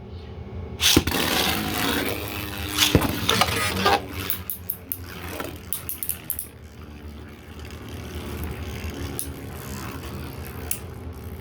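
Two 3D-printed Beyblade spinning tops launched into a stadium about a second in, scraping and whirring around the bowl. They strike each other in repeated sharp clicks.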